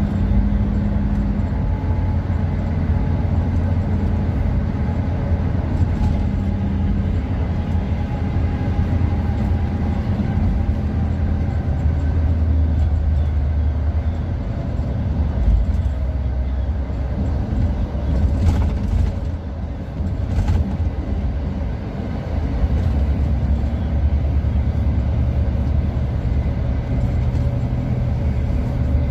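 Inside a coach bus cab at highway speed: steady low engine drone and road rumble, dipping briefly about two-thirds of the way through.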